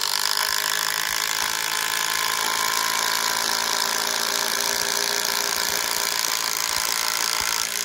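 Brushed DeWalt DCF885 impact driver hammering steadily as it drives a large lag bolt into a 4x6 wooden beam, under load the whole way, then stopping abruptly as the bolt seats.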